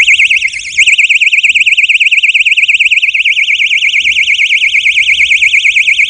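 Egg-shaped personal safety alarm keychain sounding its loud siren, a high-pitched warble that sweeps up and down many times a second.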